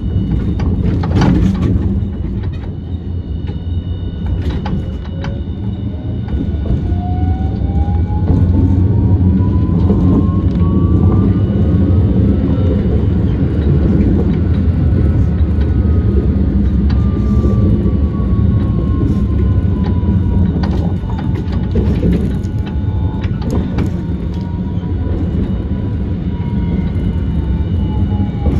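Hiroshima Electric Railway 1000-series Green mover LEX low-floor tram running, heard on board: a steady rumble of wheels on track with occasional knocks. A thin motor whine climbs in pitch for several seconds as the tram picks up speed, then slowly sinks.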